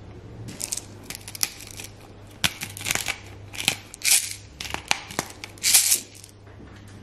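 Hand pepper mill grinding peppercorns over a plate in a run of short twists, stopping about six seconds in.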